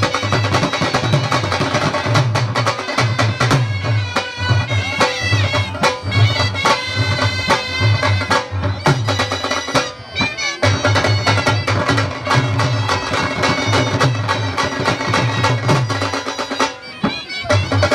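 Dhol, a double-headed barrel drum, playing a fast, driving rhythm, with a wind instrument carrying a high, sustained melody over it. The drumming breaks off briefly twice, about ten seconds in and near the end.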